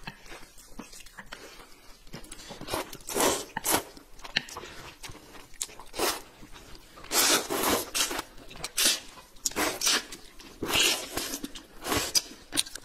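Two people slurping corn noodles off chopsticks: a series of wet slurps, the longest about seven seconds in, with chewing between them.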